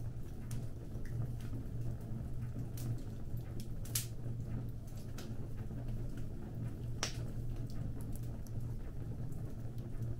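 Wood fire crackling: irregular sharp pops and snaps over a steady low rumble, with two louder pops about four and seven seconds in.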